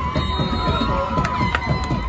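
Football crowd shouting and cheering, many voices overlapping.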